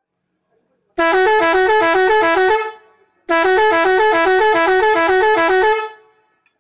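Two-tone horn sounding in two loud blasts, the second longer, each warbling rapidly between a lower and a higher note about four times a second.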